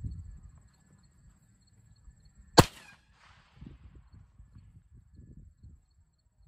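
A single rifle shot about two and a half seconds in: one sharp, loud crack that dies away quickly.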